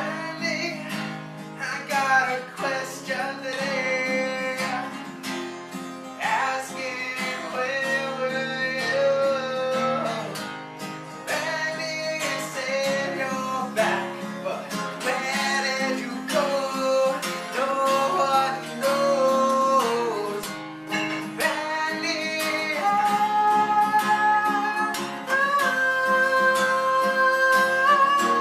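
Acoustic guitar strumming chords under a singing voice.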